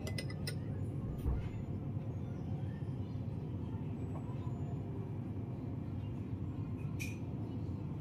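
Steady low background rumble, with a few faint clicks and a soft thump about a second in.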